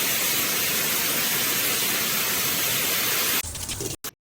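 Water spraying steadily from a shower head: a loud, even hiss. About three and a half seconds in it turns lower and less even, then cuts off suddenly.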